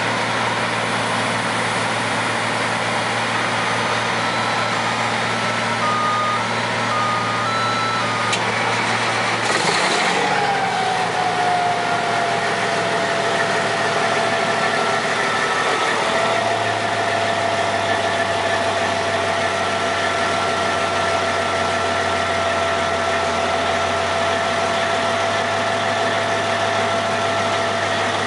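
Diesel engine of a Morbark 3800XL tracked horizontal grinder running steadily. About a third of the way in there is a brief surge of noise, after which a whine sets in, dips slightly in pitch, and holds steady over the engine sound.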